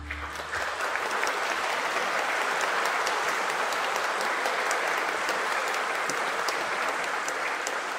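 Audience applauding with steady clapping, starting just as the final held chord of the music stops.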